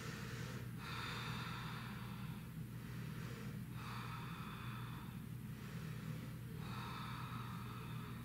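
A woman breathing slowly and audibly in long breaths, one after another, with a steady low hum underneath.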